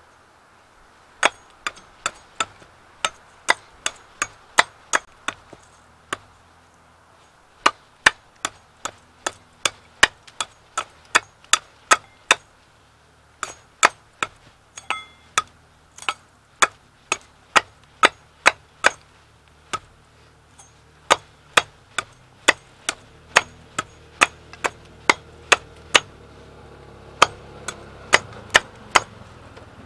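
A hand tool striking wood over and over in quick runs of sharp blows, about two a second, with brief pauses between runs.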